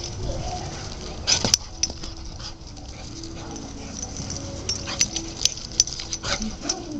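Dog whining in short, wavering calls during play, with several sharp knocks, the loudest about a second and a half in and a few more around five to six seconds in.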